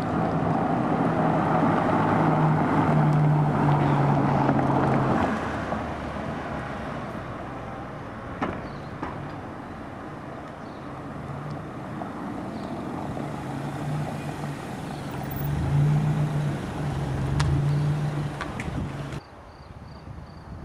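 Peugeot RCZ R's turbocharged 1.6-litre four-cylinder engine running as the coupé drives past at town speed, with tyre noise. The engine note is loudest over the first five seconds, swells again around sixteen to eighteen seconds in, and drops away suddenly near the end.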